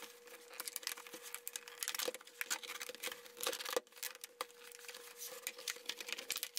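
Clear plastic clamshell packaging being pulled apart by hand and its sealed paper backing card peeled off, giving irregular crackling, crinkling and tearing.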